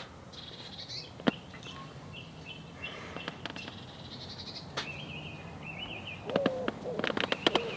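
Songbirds chirping, with a sharp knock about a second in and another near five seconds as split kindling is set into a small folding steel fire pit. From about six seconds, rapid crackling as the kindling catches, and a pigeon cooing over it.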